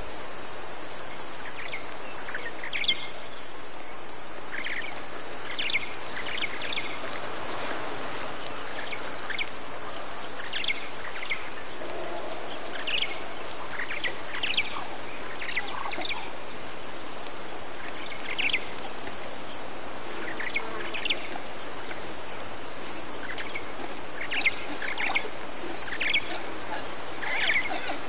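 Savannah ambience: scattered short bird chirps over a steady high insect buzz and background hiss.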